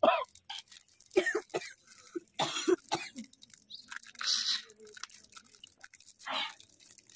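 Short, separate coughs and throat-clearing from people with their mouths full of chocolate bars, about half a dozen over several seconds, one of them a breathy hiss.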